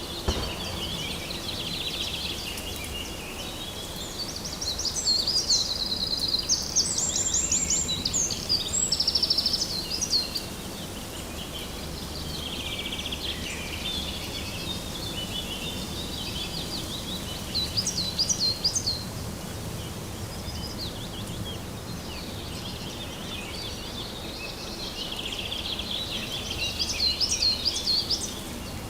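Several birds singing in bouts of quick trills and chirps, loudest a few seconds in, around the middle, and near the end, over a steady low background rumble.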